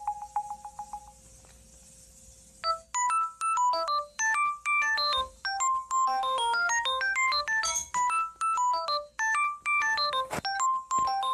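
LG K7 smartphone's built-in ringtone: the last of a quick repeating beep fades in the first second, then after a short pause a new tone starts, a fast melody of short bright notes, with a couple of sharp clicks near the end.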